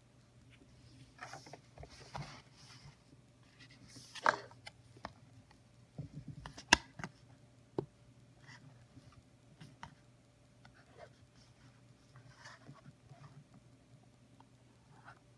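Quiet handling sounds of a fountain pen and paper on a tabletop: soft rustling with several sharp clicks and light knocks, the sharpest about seven seconds in. Near the end comes faint scratching of the TWSBI Eco's steel nib writing on paper.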